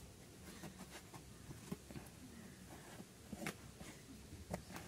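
Badminton rackets striking a shuttlecock back and forth in a rally: about four sharp taps, roughly one every one and a half seconds.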